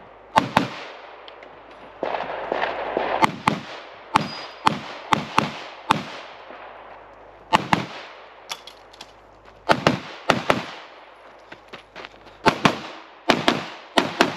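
Pistol shots fired during a practical-shooting stage run: about twenty sharp cracks, mostly in quick pairs, with pauses of one to two seconds between groups as the shooter moves, each crack trailing off in a short echo.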